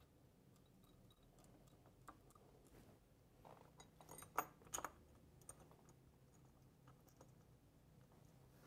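Near silence broken by a few faint clicks and taps of a bolt being threaded by hand through a mounting bracket into a motorcycle transmission pan, with two sharper clicks about halfway through.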